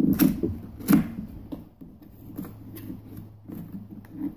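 Small cardboard box being handled and opened, its flaps and packaging rubbing and scraping, with two sharper knocks just after the start and about a second in.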